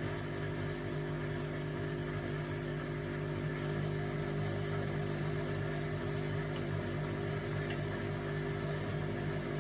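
Indesit washing machine running, its motor and drum giving a steady hum with a constant pitch.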